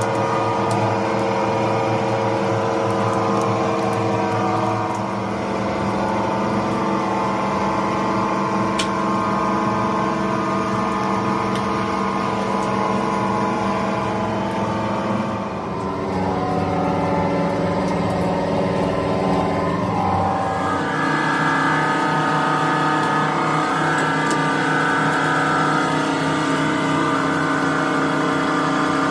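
Rubber mixing mill running: a steady machine drone of motor and gearing, made of several even tones, shifting in pitch about halfway through and again about two-thirds of the way in.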